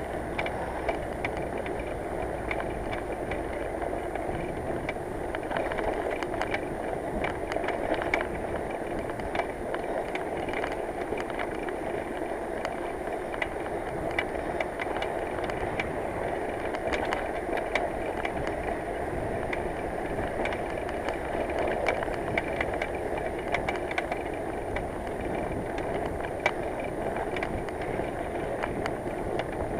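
Touring bicycle rolling along a road, a steady rolling noise from the tyres with frequent small clicks and rattles from the bike.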